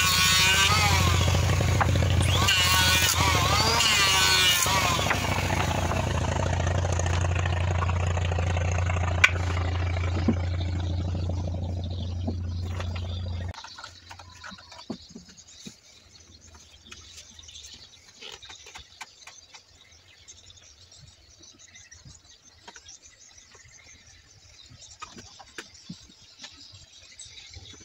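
An electric hand planer shaving wood, its motor whine wavering as it cuts, over a steady low drone of a small engine. The drone cuts off suddenly about halfway through, leaving only faint knocks and clatter of handling.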